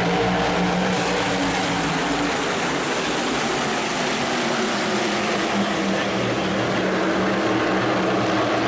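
A pack of NASCAR Whelen Modified race cars' V8 engines at full throttle on a restart. Several engine notes overlap, swelling and shifting in pitch as the cars pass.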